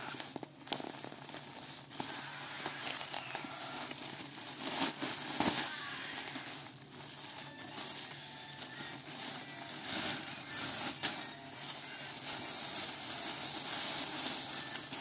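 Thin black plastic shipping bag crinkling and rustling as hands handle and unwrap a parcel, an irregular crackle of many small sharp crinkles.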